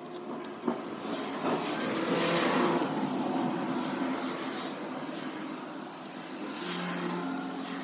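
A vehicle engine running steadily, its sound swelling and easing a couple of times, with a single sharp click about a second in.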